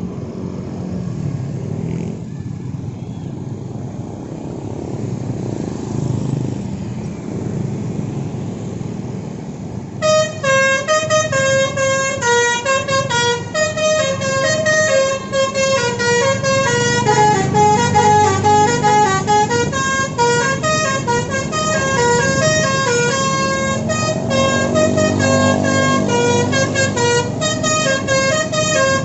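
Bus engine rumbling, then about ten seconds in a telolet basuri multi-tone bus horn starts playing a quick melody of short, stepping notes that keeps going over the engine noise.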